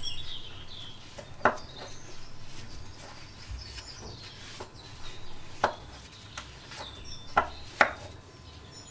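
Paper towel rubbing and rustling against a ride-on mower's metal brake disc, with a few light knocks as the disc is handled and set on a wooden bench.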